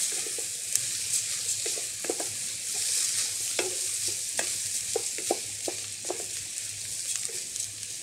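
Arborio rice frying in hot fat in a heavy saucepan: a steady sizzle, with irregular scrapes and taps as the grains are stirred to coat them in the fat.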